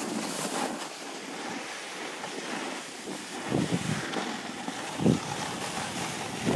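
Wind rushing over a handheld camera's microphone, a steady hiss with a few low buffeting thumps about three and a half and five seconds in.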